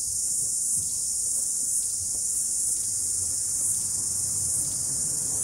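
Steady, high-pitched insect song from a garden chorus, running without a break.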